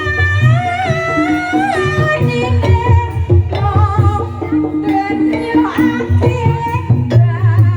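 Live Banyumasan ebeg accompaniment music: kendang hand drums beating a low, driving rhythm under repeated pitched gamelan notes, with a high wavering melody line carried by a singer or suling flute above.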